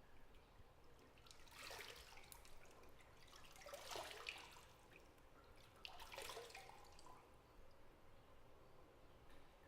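Bathwater splashing and dripping faintly in a bathtub, in three short bursts a little over two seconds apart.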